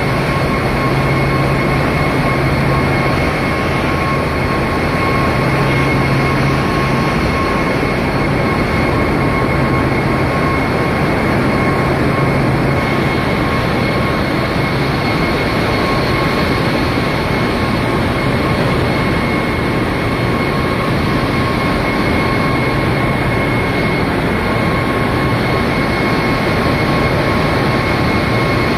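Loud, steady machinery noise in a large container ship's engine room, from engines, pumps and ventilation all running together. A constant high-pitched whine rides over it, and a low hum swells and fades.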